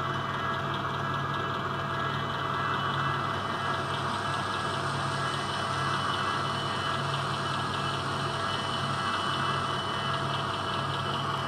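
Sound decoder of a Brawa HO-scale Gravita diesel locomotive model playing a steady diesel engine idle through the model's small speaker.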